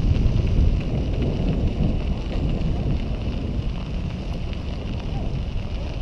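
Wind buffeting the microphone of a camera carried on a moving bicycle, a loud uneven low rumble, with a faint steady hiss higher up.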